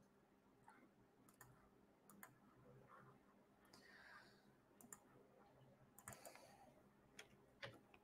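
Near silence with faint, scattered clicks, about seven over the stretch, and a few soft rustles between them.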